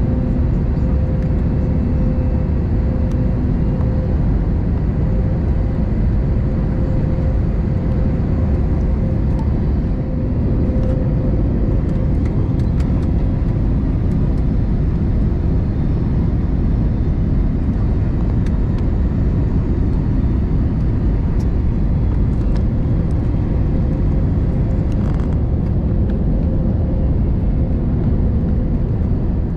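Steady cabin noise inside an Airbus A320neo airliner: a loud, even low rumble of engines and airflow, with a faint steady hum running through it.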